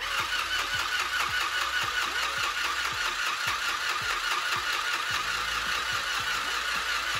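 Singer Stitch Quick battery-powered handheld sewing machine running continuously, stitching through fabric with a steady, rapid, even mechanical rhythm.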